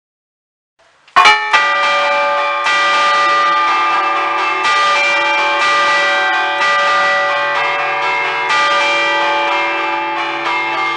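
Church bells of a five-bell Ambrosian peal in D, cast by Giorgio Pruneri in 1875, chimed by hand with cords pulled against the clappers in a festive allegrezza, heard close up from inside the belfry. After about a second of silence the first loud strike comes, then more strikes every second or two, their tones overlapping and ringing on.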